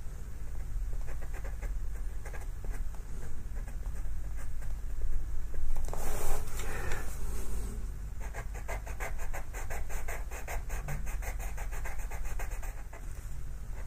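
Pastel pencil scratching across textured pastel paper in quick short strokes, several a second in the second half, with a louder longer scraping rub about six seconds in.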